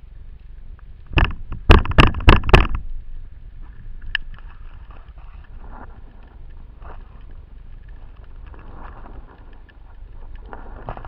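Underwater sound picked up by a diver's camera: a quick run of about five loud knocks a little over a second in, then a faint steady crackle of small clicks.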